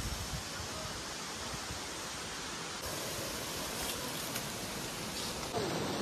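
Steady, even rushing of falling water from a waterfall. It becomes a little louder after a cut near the end.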